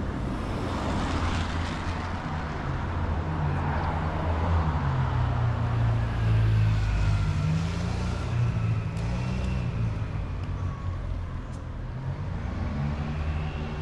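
City street traffic: motor vehicles passing, with a low engine rumble that rises and falls in pitch and is loudest around the middle, over tyre hiss.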